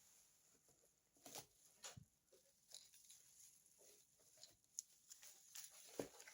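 Faint handling noises, probably the pan and its packaging: scattered soft rustles and about five light clicks or taps, the sharpest near the end.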